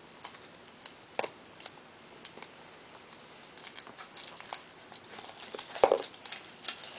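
Small plastic toys and wrappers handled on a table: scattered light clicks and taps, with a sharper click about a second in and a louder knock about a second before the end.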